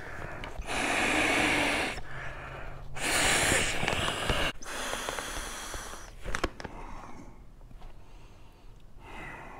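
A man blowing up a Klymit inflatable sleeping pad by mouth: three long, hard exhalations into its valve, each about a second and a half, with air rushing into the pad.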